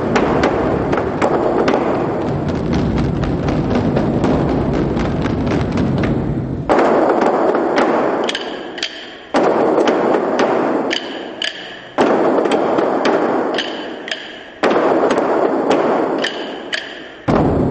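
Large Chinese ceremonial drums played by a drum troupe. First a fast, continuous roll of strokes for about seven seconds, then a repeating phrase: a loud stroke about every two and a half seconds, each fading under quicker, lighter beats and a few sharp ringing clicks.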